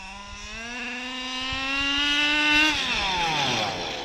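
Zenoah G320 32cc two-stroke engine of a KM Baja 1/5-scale RC buggy, running through a silenced side pipe, revving up with its pitch climbing steadily for nearly three seconds. Near the end its pitch and loudness drop off sharply.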